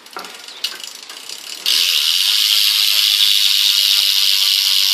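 BMX rear hub freewheeling: after a few pedal turns with light rattling, the pawls start clicking about a second and a half in. The clicks are so fast they blur into a loud, steady, high-pitched buzz as the rear wheel spins free.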